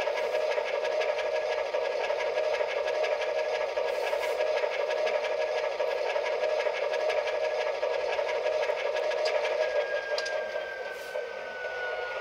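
ESU sound decoder in an Atlas O-scale ALCO RS-1 model playing the diesel engine idling through the locomotive's small speaker: a steady rhythmic chug. A faint high tone slides slowly down near the end.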